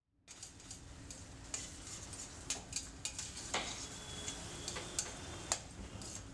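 Metal spoon stirring food in a stainless-steel pan on a gas stove, with sharp clinks and scrapes of the spoon against the pan over a steady frying sizzle.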